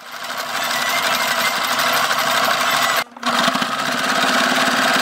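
Kenmore 12 Stitch sewing machine running and stitching through fabric: the motor and fast needle strokes speed up over the first second, then run steadily. The sound drops out briefly about three seconds in and starts again.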